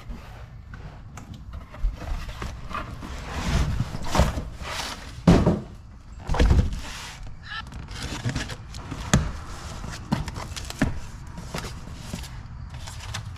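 Wheel spacers being unboxed: cardboard and packaging rustling, with scattered knocks and clicks as the box and parts are handled.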